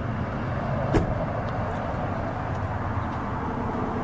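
A vehicle engine idling steadily with a low rumble, and a single sharp knock about a second in.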